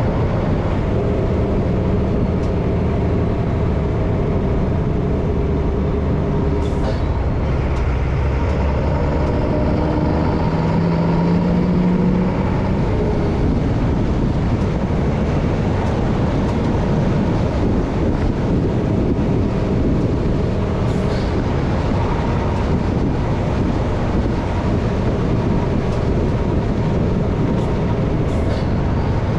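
MAN LE280B 4x4 truck driving: its diesel engine running with steady road and drivetrain noise, the engine note changing over the first ten seconds or so, with a brief hum about eleven seconds in.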